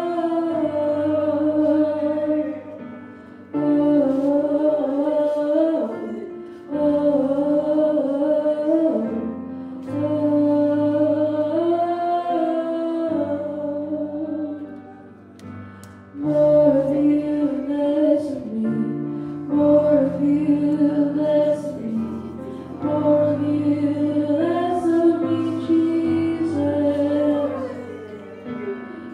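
Slow worship music: a woman singing long held, wavering notes, with no clear words, over sustained low chords, in long phrases broken by short pauses.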